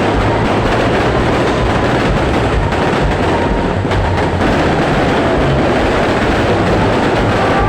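Fireworks barrage going off without a break, dense bangs and crackles running together into a steady, loud rumble.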